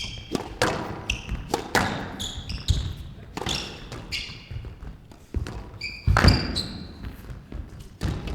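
Squash rally: the ball cracks off the rackets and smacks against the court walls at irregular intervals, with short sharp squeaks of court shoes on the floor. The loudest hit comes about six seconds in.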